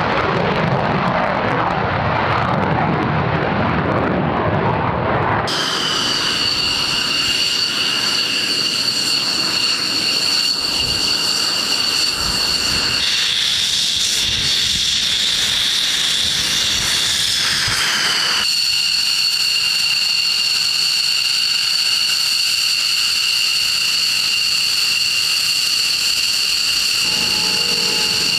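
F-15E Strike Eagle jet engines: a deep roar as a jet takes off and climbs away for about the first five seconds, then a sudden change to the steady high-pitched whine of twin jet engines running at idle as a jet taxis. Midway the whine shifts a little higher for a few seconds before settling back, and a lower hum joins near the end.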